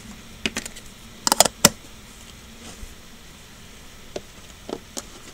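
Clicks and taps of small plastic toy figures and a ribbed plastic container being handled and set down on a table. The loudest is a quick run of clicks about a second and a half in, with a few lighter taps near the end.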